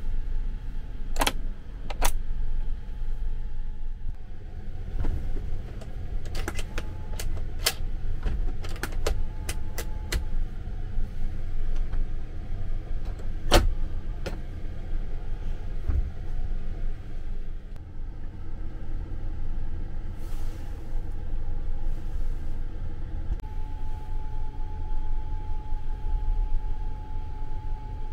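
Steady low rumble inside a Sunrise Express sleeper-train compartment, with sharp plastic clicks as the air-vent louvers are handled and one loud click about halfway through as the door's lock lever is turned. A faint steady tone comes in near the end.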